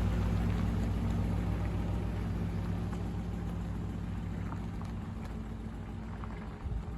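An engine running steadily with a low hum that fades gradually.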